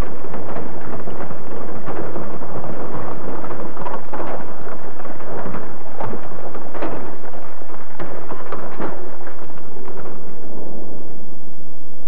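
Rocks and metal debris rattling and crunching after a vehicle is crushed: a dense run of small knocks and crackles that thins out and fades about ten seconds in.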